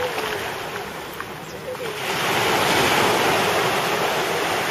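Sea surf washing in the shallows, swelling to its loudest about two seconds in as a wave comes through.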